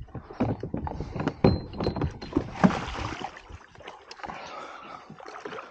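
A landing net knocking and clattering against a plastic fishing kayak as it is grabbed and swung out, then water splashing as the net is dipped and a hooked pike thrashes at the surface.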